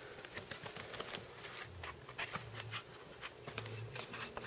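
Faint rustling and quick crackly ticks of a sealed paintball marker's packaging being opened by hand.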